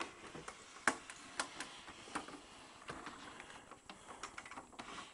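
Hands handling a record player's hardboard-backed cabinet: irregular light clicks and knocks, a few sharper ones in the first two seconds.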